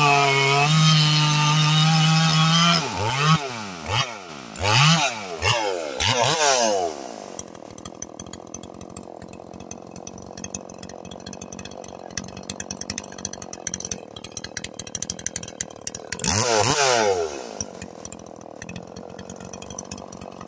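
Big-bore Stihl 044 two-stroke chainsaw held at full throttle for about three seconds, then blipped four times, its pitch dropping and climbing, before settling to a ticking idle. It gets one more quick rev near the end and drops back to idle. The sound is muffled, as if under water, through the phone's microphone.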